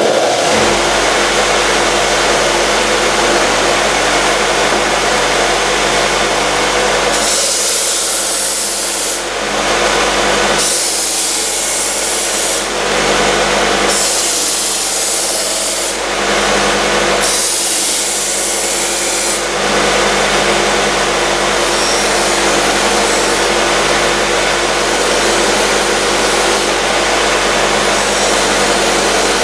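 F. Dick SM-100 knife sharpening machine running with a steady motor hum, while a knife is drawn across the abrasive four times, each pass a hissing scrape of about two seconds.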